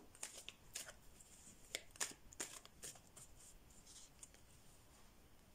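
Tarot cards being handled: faint crisp flicks and rustles of cards, a few per second at first and thinning out after about three seconds.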